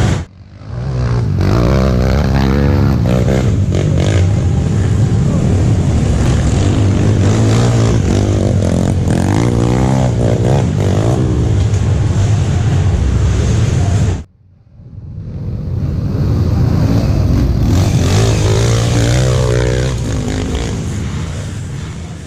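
Dirt bike engines revving up and down hard, in two stretches with a sudden break about fourteen seconds in; the sound fades toward the end.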